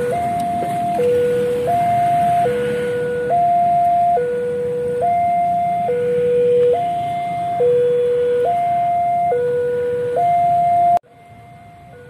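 Railway level-crossing warning alarm sounding as the crossing closes: an electronic two-tone signal alternating steadily between a lower and a higher tone, each held just under a second. About eleven seconds in it drops abruptly to a much fainter level, still alternating.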